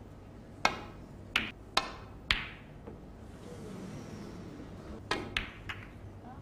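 Sharp clacks of snooker balls: the cue tip striking the cue ball and the balls knocking into each other. Four clacks come in the first two and a half seconds and three more about five seconds in, as the cue ball cannons into the pack of reds.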